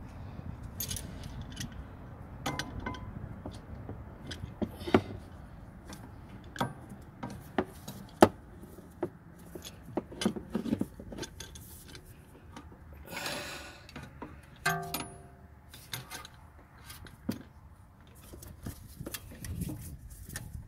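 Scattered metal clicks and clinks of a steel C-clamp being set over the brake caliper and old pad and worked to push the caliper piston back, with one brief ringing clink about three quarters of the way through.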